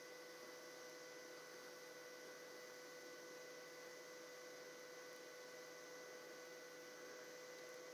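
Near silence: a faint steady electrical hum with a few thin, steady high tones over a light hiss.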